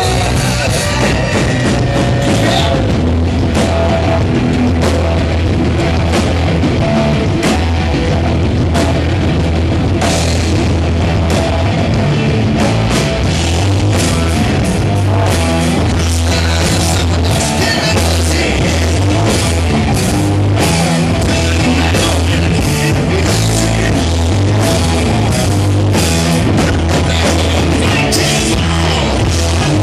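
Hard rock band playing live: distorted electric guitar, bass and a drum kit with frequent cymbal hits, loud and steady throughout, heard from within the crowd.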